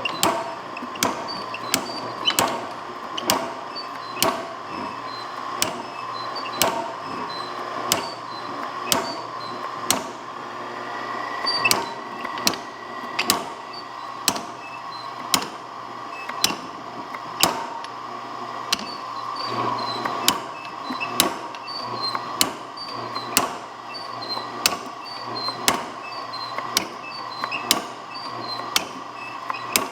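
Power hammer striking a flat-ended cutter set on 1.5-inch round steel bar in a V-block, blow after blow at roughly one to two a second, over a steady hum.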